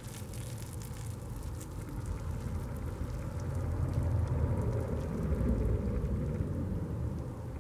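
A hand digging and rummaging through moist worm compost and damp cardboard bedding: a wet rustling and crackling with a low rumble underneath, getting louder toward the middle.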